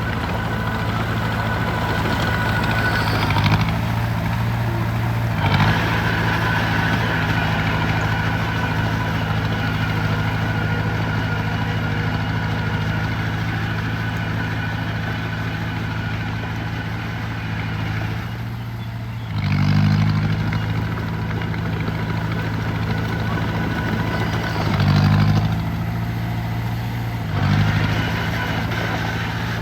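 Heavy construction machine's diesel engine running steadily, briefly revving up five times, twice near the start and three times in the second half.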